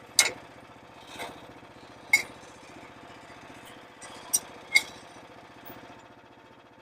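Sharp metal knocks and clinks, about five in all, some ringing briefly, as the sawmill's board-holding attachment is handled and fitted, over a small engine idling steadily.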